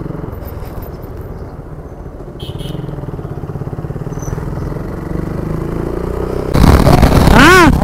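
Motorcycle engine running at riding speed, heard from on the bike, its note rising slightly in the middle as it picks up speed. Near the end a much louder sound cuts in suddenly, with a pitch that bends up and down.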